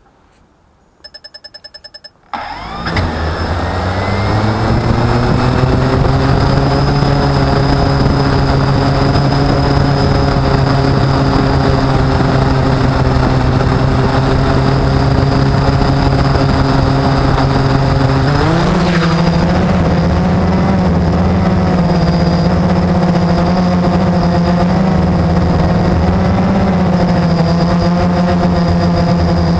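Blade 350 QX quadcopter: a quick series of electronic beeps, then its four brushless motors spin up to a steady whining hum. About two-thirds of the way through, the pitch steps up sharply as throttle is added and then wavers up and down in flight.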